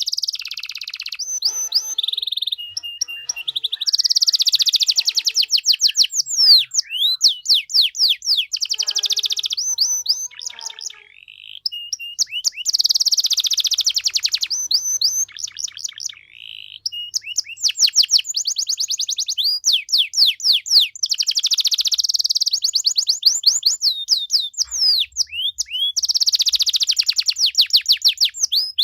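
Domestic canary singing a long, varied song: fast, dense trills alternate with quick runs of sweeping whistled notes, broken by brief pauses about eleven and sixteen seconds in.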